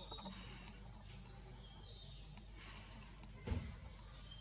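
Birds in the forest canopy chirping with short high whistles, and one sharp thump about three and a half seconds in.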